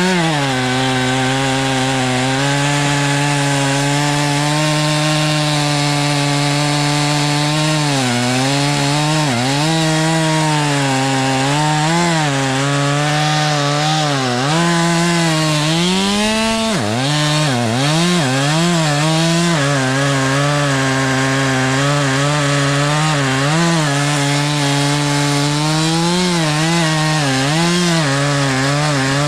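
Two-stroke chainsaw running at high revs through a cut, its pitch dipping and recovering again and again as the chain loads up in the wood, with one deep drop about two-thirds of the way through.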